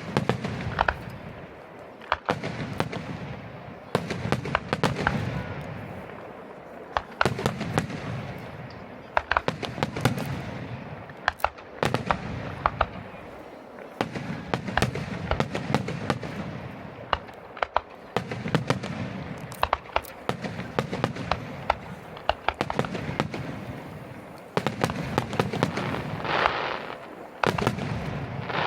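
Fireworks display: aerial shells bursting with deep booms every couple of seconds, mixed with many sharp crackling reports.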